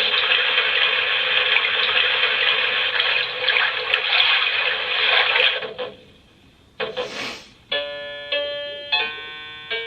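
The Graco Everyway Soother baby swing's built-in speaker plays a steady rushing soothing sound that stops about six seconds in. After a brief hiss, a plinking lullaby tune of chime-like notes begins.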